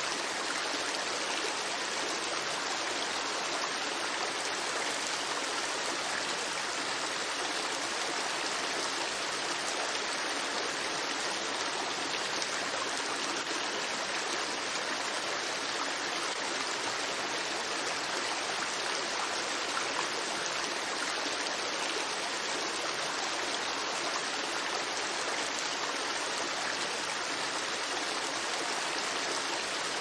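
River water flowing steadily, an even, unbroken rush of water with no changes or distinct splashes.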